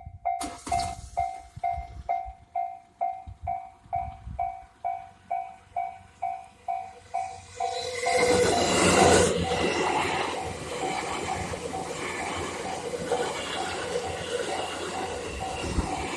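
Japanese level-crossing warning bell ringing in quick repeated electronic dings, about three a second. About eight seconds in, a train arrives and passes, its noise taking over while the bell keeps ringing beneath.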